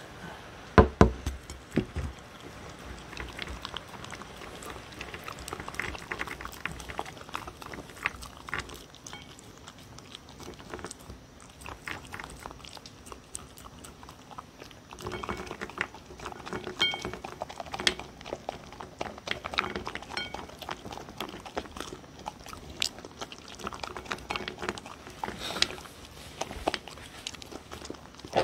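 A dog eating close to the microphone: steady chewing, smacking and licking on a mix of kibble, soft sweet potato, beef and red pepper from a bowl. A few loud knocks come about a second in.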